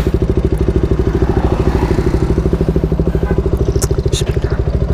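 KTM Duke 200's single-cylinder four-stroke engine idling steadily with an even, rapid pulse. A couple of light clicks come about four seconds in.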